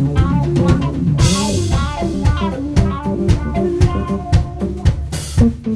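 Live rock trio playing: an electric guitar (a Telecaster-style guitar) plays a line with bends and vibrato over electric bass and a drum kit. Cymbal crashes come about a second in and again near the end.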